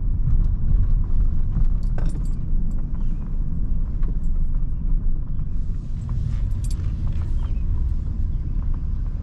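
Toyota minivan rolling slowly, heard from inside the cabin: a steady low road-and-tyre rumble with scattered light clicks, and a brief grittier hiss from about five and a half to seven seconds in.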